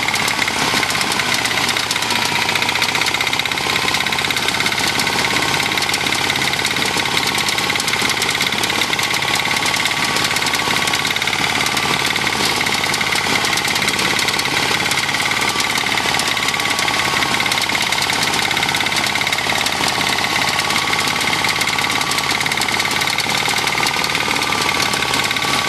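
Engine of a self-propelled walk-behind soybean reaper running steadily while its front cutter bar cuts standing soybean crop.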